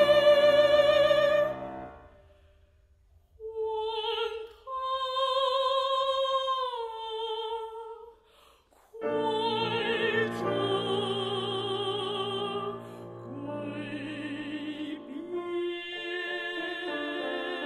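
A female classical singer sings an operatic phrase with wide vibrato. A held note ends about a second and a half in, then after a short pause she sings an unaccompanied phrase, and piano accompaniment comes in under the voice about nine seconds in.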